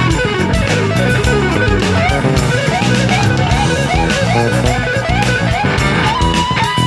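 Background instrumental music: fast guitar runs over bass and drums, moving into a long held note about six seconds in.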